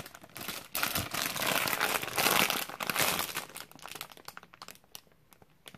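Clear plastic squishy packaging bag crinkling as it is handled and turned. The crackle is dense for the first few seconds and dies away about four seconds in.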